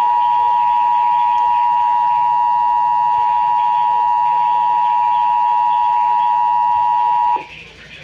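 Emergency Alert System two-tone attention signal from a Trilithic EASyCAST EAS controller, 853 and 960 Hz sounded together as one steady, loud tone that cuts off suddenly about seven seconds in. It announces an emergency alert, here a severe thunderstorm warning.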